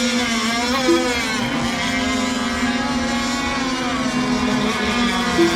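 Several radio-controlled racing boat engines running together on the water, their pitch rising and falling as the boats throttle up and down while circling before a race start.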